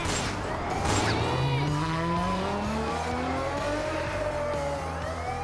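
Car engine revving and sweeping past, its pitch climbing steadily through the middle, over background music. Two sharp gunshot bangs about a second apart come at the start.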